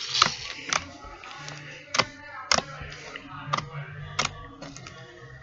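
A container of floam slime being opened and handled: a string of sharp, irregular clicks and crackles, roughly one every half second, over background music.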